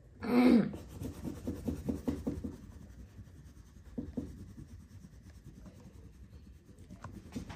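Crayon rubbing on paper in quick repeated back-and-forth strokes, busiest in the first couple of seconds and lighter afterwards. A short, loud pitched sound that falls in pitch comes about half a second in.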